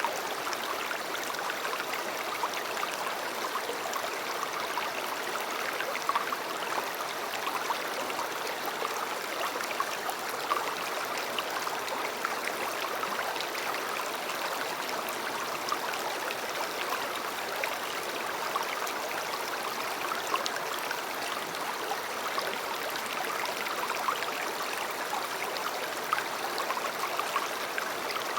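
A river running steadily over rocks, with many small splashes and gurgles.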